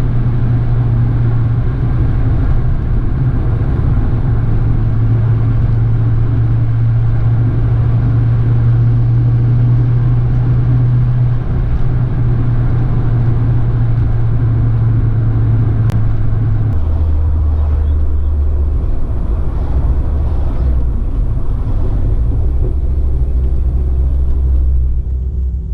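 Ford Focus ST Mk2.5's turbocharged 2.5-litre five-cylinder engine running at steady revs while driving, a constant low drone. About 17 seconds in, the drone steps down to a lower pitch and holds there.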